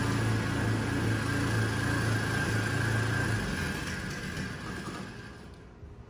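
Pressure washer running, a steady motor hum under the hiss of spraying water. The hum cuts out a little past halfway, and the sound then fades away to quiet.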